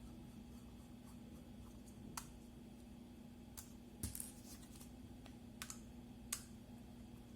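A few sharp, scattered small clicks and taps of a screwdriver and screws being worked on the laptop hard-drive bracket, over a faint steady hum.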